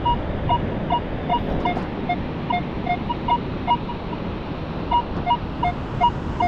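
Minelab Equinox 900 metal detector's speaker beeping as the coil is swept back and forth over a buried target: quick short beeps alternating between a lower and a higher tone, about four or five a second, pausing briefly about four seconds in before starting again. The repeated two-tone response signals a target in the sand under the coil.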